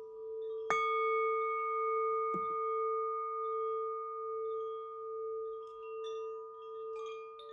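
Meditative intro music of ringing bell tones. A low tone sounds throughout with a slow waver. A higher bell is struck about a second in and again around two and a half seconds, and light chime tinkles come near the end.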